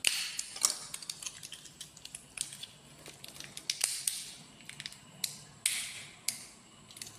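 Paper and plastic scraps from a smashed phone crumpled and crushed in the hand, crackling in short irregular bursts with sharp clicks.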